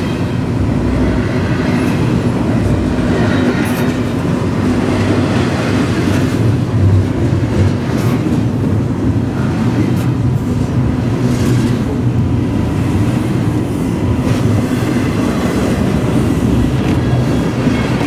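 Double-stack container freight train rolling past close by: a steady, loud rumble of wheels on rail, with scattered clicks from the wheels.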